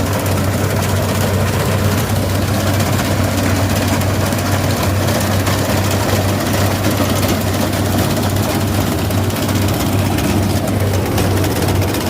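Combine harvester running steadily while harvesting rice: a loud, even engine hum with a dense mechanical rush over it.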